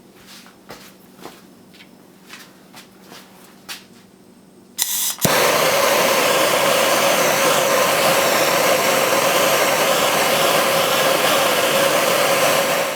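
A handheld gas torch lit about five seconds in, after a few light clicks of handling, then burning with a loud, steady hiss until it is shut off at the end. The flame is heating the steel tang of a saw-blade knife blank to soften it for punching and drilling.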